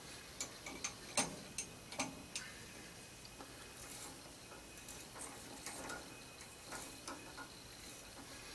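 Irregular light clicks and ticks from a hand tap being turned into a blind hole with a tap handle, metal clicking as the tap cuts and the handle is worked. Sharper clicks come in the first couple of seconds, then fainter ticks.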